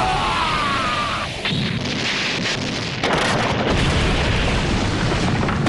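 Anime fight sound effects: falling tones fade out in the first second. About three seconds in, a loud, continuous explosion-like rumble starts abruptly and carries on.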